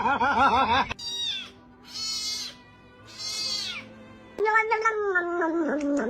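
A domestic cat meowing over and over. It gives a wavering cry, then three short high-pitched meows, then a long drawn-out yowl starting about four and a half seconds in, the kind of insistent meowing of a cat asking to be fed.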